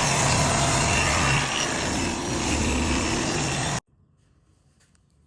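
Loud, steady motor or machine noise with a low hum, cut off abruptly about four seconds in.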